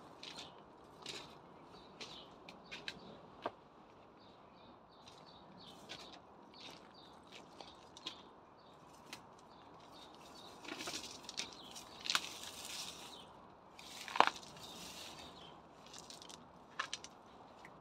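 Leafy weeds rustling and crackling as they are pulled up and handled by gloved hands, with scattered short snaps of stems. One sharper snap comes about three-quarters of the way through.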